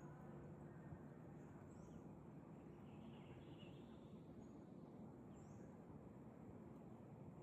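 Faint outdoor ambience with a few faint bird chirps: short high falling notes about two seconds in and again near five and a half seconds, and a brief run of chirping around three seconds in.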